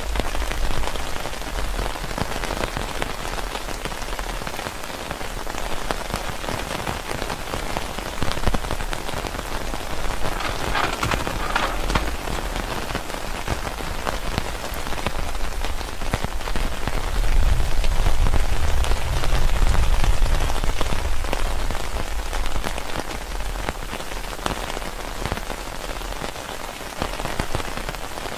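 Heavy rain falling steadily, with a dense patter of individual drops ticking through it. A deeper low rumble swells for a few seconds past the middle.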